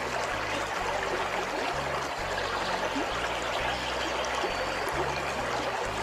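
Rocky mountain stream rushing over stones in shallow rapids, a steady, even rush of water.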